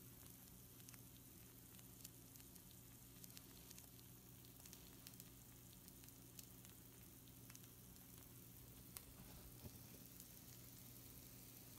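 Pizza rolls on a hot baking sheet sizzling faintly, with scattered small crackles and pops from the filling leaking out of their seams. A steady low hum runs underneath.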